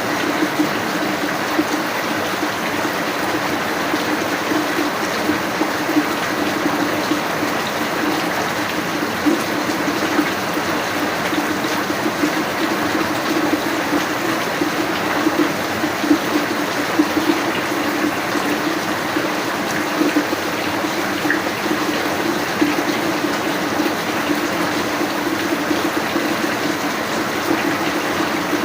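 Rain falling, a steady, unbroken rush of water.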